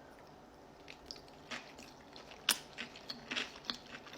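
Close wet mouth sounds of someone biting into and chewing a piece of egg topped with gherkin, ketchup and mustard. Soft clicks and squelches start about a second in, and the sharpest comes about halfway.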